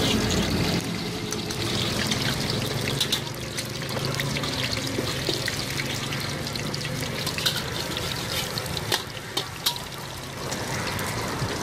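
An egg sizzling in hot oil in a steel wok, with many small pops, and the metal ladle and spatula scraping and clinking against the wok as the egg is broken up and stirred.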